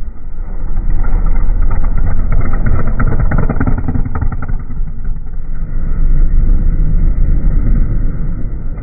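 Desert off-road race trucks passing close at full throttle, one after another, their engines running loud; the sound swells as one goes by in the first few seconds and again as the next one passes about six to eight seconds in.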